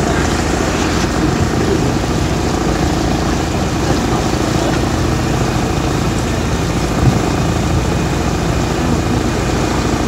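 Tour boat's engine running steadily, with water rushing along the hull. A single short knock sounds about seven seconds in.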